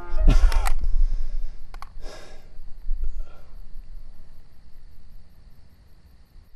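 Crickets chirping steadily in the night, after a low rumble and a couple of sharp noises in the first two seconds.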